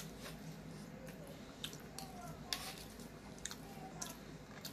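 Faint wet chewing with scattered sharp mouth clicks and smacks, a few each second.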